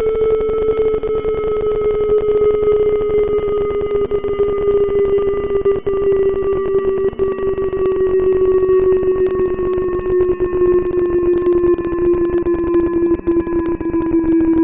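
ACA P-50 siren sounding one steady tone that slowly falls in pitch as it winds down, with crackling clicks throughout.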